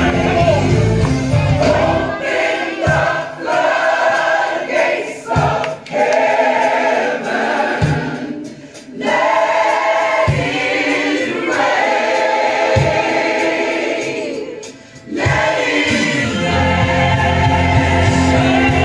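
Gospel song with a choir singing. The bass and beat drop out about two seconds in, leaving the voices over a few single low hits, and come back in near the end.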